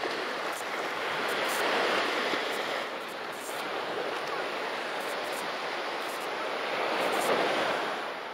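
Surf washing on a beach: a steady rush of waves that swells about two seconds in and again near the end.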